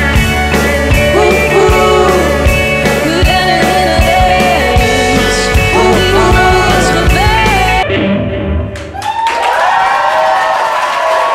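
Live rock band playing, with a lead singer over drums, bass and guitar. The music cuts off suddenly about eight seconds in, and an audience applauds and cheers.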